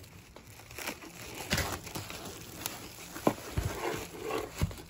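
Plastic wrap on bolts of quilting fabric crinkling as the bolts are handled and lifted from a cardboard box, with a few short dull knocks in the second half.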